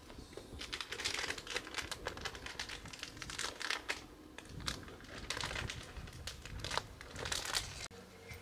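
Footsteps crunching through dry fallen leaves, in several bursts of crackling, cutting off suddenly near the end.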